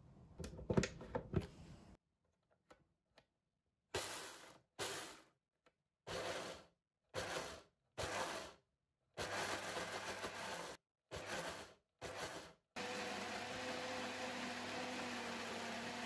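A Homgeek countertop blender grinding raw brown rice with tofu into batter: after a few knocks and clicks, the motor is pulsed in about eight short bursts, then runs continuously from near the end.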